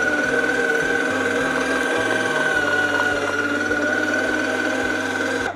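Electric meat grinder running steadily with a constant motor whine, mincing sweet peppers; it switches off abruptly at the very end.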